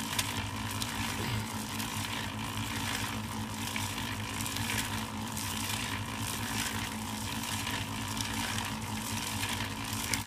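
Concrete mixer running, its drum churning a very thick concrete mix of cement, sharp sand and large stones: a steady motor hum with a rough churning noise over it.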